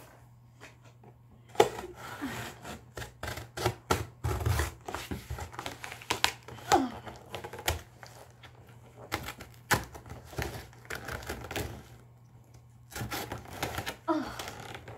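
Packing tape on a large cardboard box being slit open with a thin pointed tool: an irregular run of scratching, scraping and tapping on the cardboard, with short squeaky tears of the tape. There is a brief lull about two-thirds of the way through.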